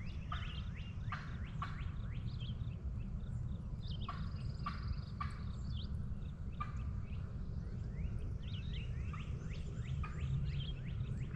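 Songbirds chirping and calling throughout, many short downward-sweeping notes with a brief high trill or two, over a steady low rumble.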